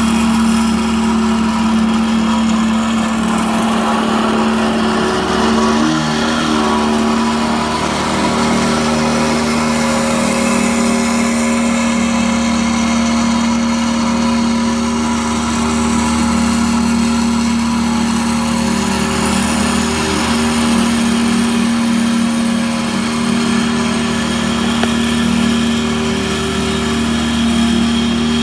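Small engine of a walk-behind double-drum roller running at a steady speed while the roller is driven over bare soil: a steady hum at one pitch.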